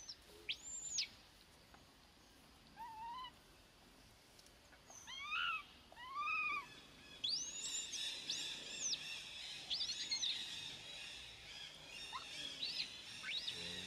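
Baby macaque giving repeated high-pitched cries, each a short rise-and-fall, with a few lower, fuller cries in the middle and the cries coming faster in the second half; a hungry infant screaming for its mother.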